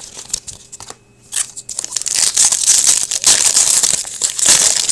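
Foil wrapper of an Upper Deck Series 2 hockey card pack being torn open and crinkled by hand, after a few light clicks of cards being handled. The loud crackling starts about two seconds in.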